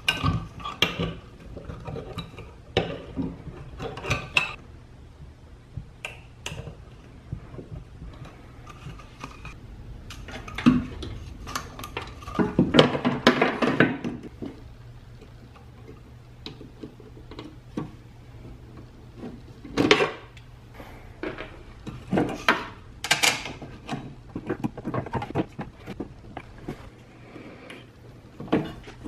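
Handling noise from fitting a replacement welder cooling fan: scattered clicks, taps and clatter of metal and plastic as crimped spade connectors are pulled off and pushed onto wires and the fan is set against the welder's sheet-metal case. A denser rattling stretch comes about halfway through.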